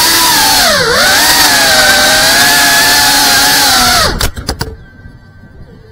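FPV drone's motors and propellers whining steadily, dipping in pitch and rising again about a second in as the throttle eases and comes back. About four seconds in there are a few sharp knocks as the drone comes down by a person's feet, and the motor whine cuts off.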